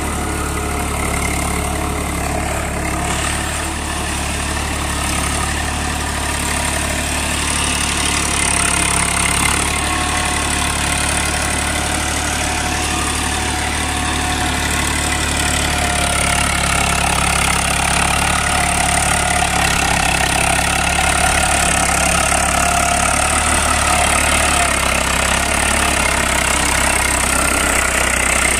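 Eicher 380 tractor's diesel engine running steadily under load as it drives a rotavator through a flooded paddy field.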